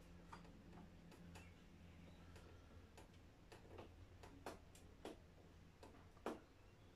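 Faint, irregular light clicks and taps of metal as a 5-inch gauge model steam locomotive is tipped over and handled, about a dozen ticks with the loudest about six seconds in, over a low steady hum.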